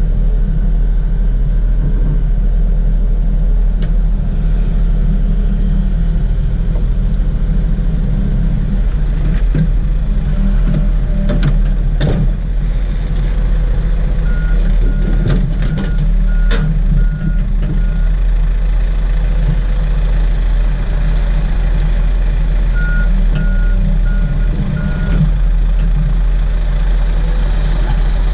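Komatsu PC70 excavator's diesel engine running steadily under hydraulic load, heard from the cab, with a few metal knocks as the bucket meets the steel dump-truck bed. A warning beeper sounds about twice a second in two short runs, the second half of the way through and again near the end.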